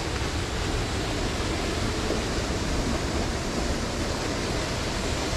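Thi Lo Su waterfall pouring, heard as a steady, even rush of water.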